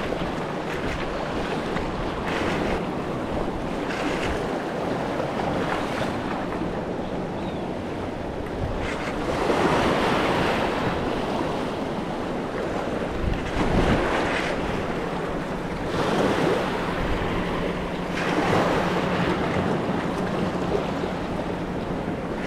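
Ocean surf washing and foaming over jetty rocks, surging louder several times, with wind buffeting the microphone.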